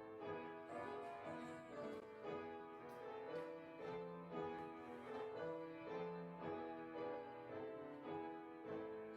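Instrumental keyboard music in a slow classical style, chords and melody notes changing about twice a second.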